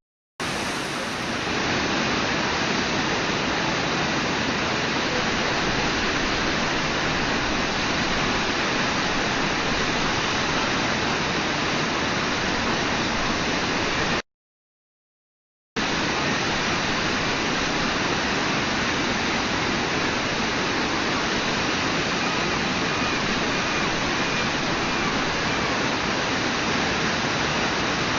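Brooks Falls' whitewater rushing in a steady, unbroken wash of noise. The sound cuts out completely for about a second and a half midway, then returns unchanged.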